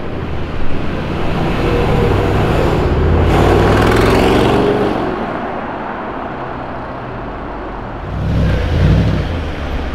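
Range Rover Sport SVR's supercharged V8 accelerating away in traffic, with a rising exhaust note loudest about three to five seconds in, and a second, shorter swell near the end.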